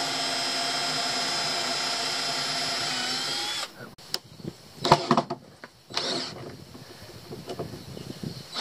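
Cordless drill running at steady speed, boring through wood to pre-drill a hole so the board won't split. Its whine dips slightly and then cuts off about three and a half seconds in, followed by a few knocks.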